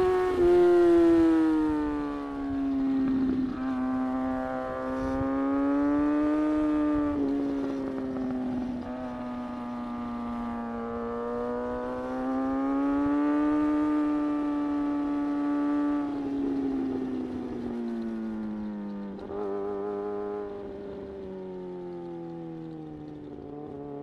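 Kawasaki ZX-6R sportbike's inline-four engine running at speed on a winding road, its pitch rising and falling as the throttle is rolled on and off through the curves. There are a few abrupt steps in pitch, and it settles lower near the end as the bike slows.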